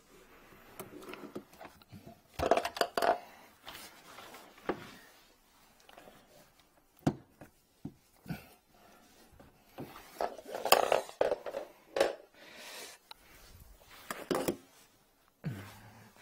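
Irregular knocks, clunks and rubbing from handling work under a sink: plastic drain fittings and a flexible drain-cleaning cable being moved about. There is a clump of handling noise about two and a half seconds in and a busier stretch about ten to twelve seconds in.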